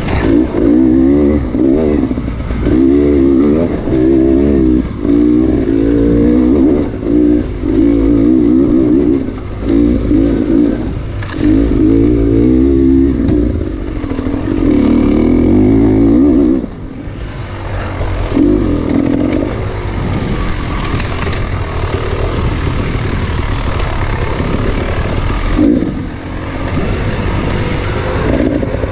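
Two-stroke dirt bike engine revving up and down over and over as the throttle is worked along a trail. It goes quieter for several seconds past the middle, then revs hard again near the end.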